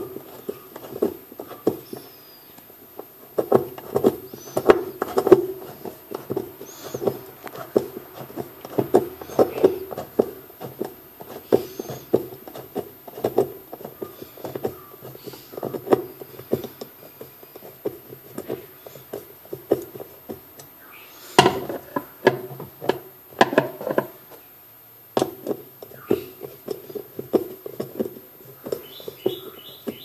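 Screwdriver turning the centre screw of a washing machine's plastic pulsator, giving irregular short creaks and clicks, two or three a second, with a louder run about two-thirds through.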